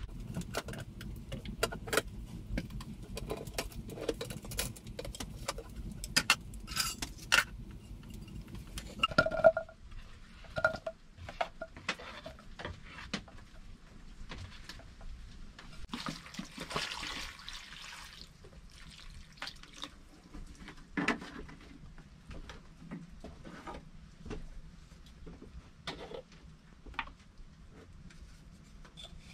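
Camp cooking handling sounds: clinks and knocks of a metal cooking pot and utensils, many in quick succession at first. About two seconds of water pour into the pot a little past the middle.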